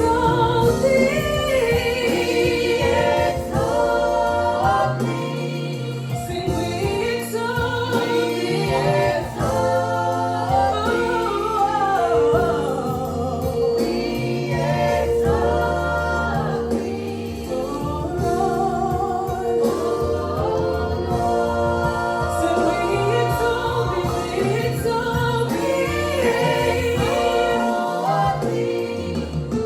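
Gospel choir singing a worship song together, over sustained low bass notes from the accompaniment.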